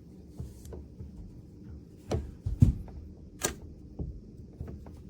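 Door lever and latch hardware being handled: a string of sharp clicks and knocks. The loudest come in a cluster around the middle.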